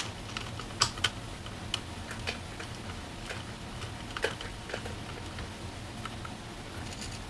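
Light, irregular metal clicks and taps of a 5 mm hex key tightening a screw on a trike's wheel mount, the loudest about a second in and about four seconds in.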